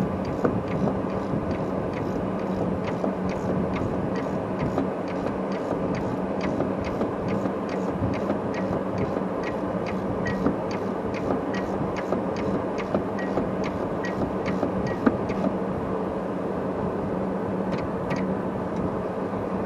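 Ratchet wrench clicking steadily, about three clicks a second, as the rear brake caliper bolts are run in and tightened; the clicking stops about three-quarters of the way through. A steady low hum runs underneath.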